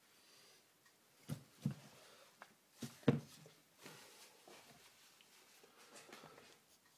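Handling noises on a workbench: several light knocks and clunks of metal gearbox parts being set down, the loudest a little after three seconds in, followed by fainter handling sounds.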